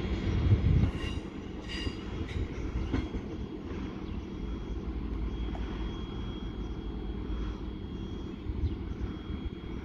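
Diesel multiple unit train, a Class 150 Sprinter, pulling away and receding. Its low engine and wheel rumble is loudest in the first second, then settles lower and steadier. A few sharp clicks from the wheels on the track come between about one and three seconds in.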